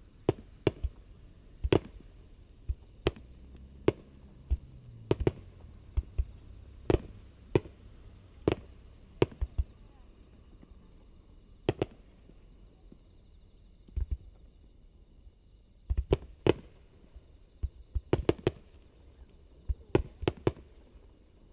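Fireworks shells bursting some 750–800 m away: a long, irregular string of sharp bangs, some in quick clusters, with a short lull in the middle. A steady high insect trill runs underneath.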